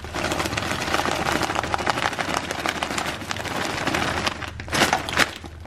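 Edamame beans pouring out of a bag in a dense patter of many small rattles, then a few separate shakes of the bag near the end.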